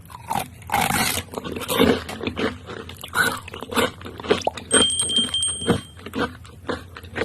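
Close-up eating sounds: irregular bites and crunchy chewing of fried food, with wet mouth clicks. A steady high-pitched tone sounds for about a second in the middle.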